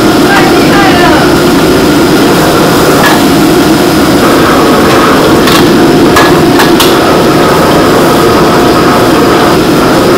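Commercial gas wok burner running loudly and steadily under the wok, with several sharp clinks of a metal ladle striking the wok as the food is stirred.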